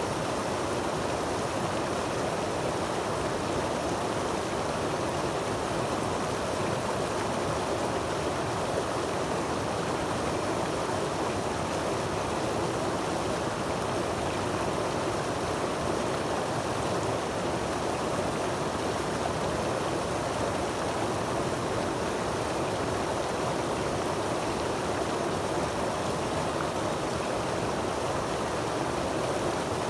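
Creek water cascading over boulders and a rock ledge into a shallow pool: a steady, unbroken rush of moving water.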